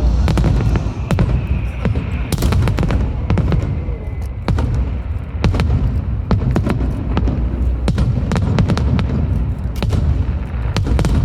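Fireworks display: a rapid, irregular string of sharp bangs and crackles over a continuous low rumble of shell bursts.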